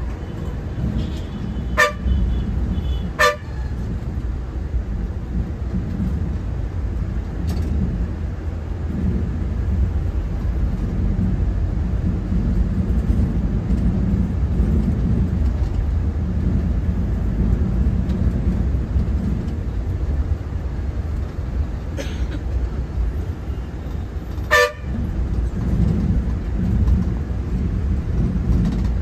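Moving bus running on the road, a steady low engine and road rumble. Brief sharp horn toots sound about two and three seconds in and twice more toward the end.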